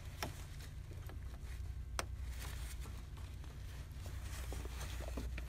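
Steady low background hum with a few light clicks and handling noises, one sharper click about two seconds in.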